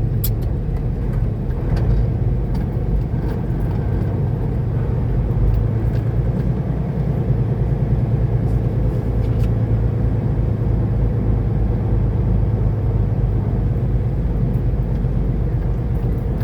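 Steady low drone of a semi truck's diesel engine and road noise, heard inside the cab, with a few faint clicks.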